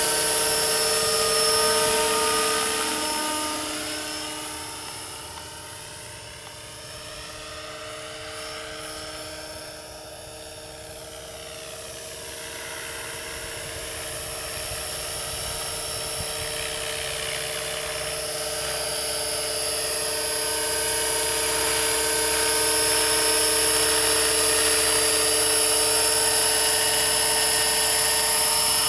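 Radio-controlled scale AS350 helicopter's motor and rotors whining steadily in flight. The sound fades as it flies off, then grows louder again as it comes back in close and sets down on the grass near the end.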